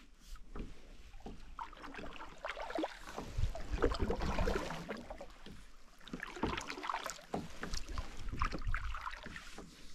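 Kayak paddle blades dipping and pulling through lake water, with irregular splashing and dripping as the paddle switches sides.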